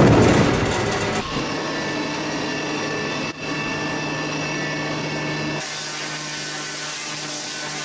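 Automatic log-processing machine running: a motor-driven rotary cutting head strips the surface of a log as spiked rollers turn it, giving a steady mechanical noise with a constant low hum. It is loudest right at the start, dips briefly about three seconds in, and turns hissier and brighter about two-thirds of the way through.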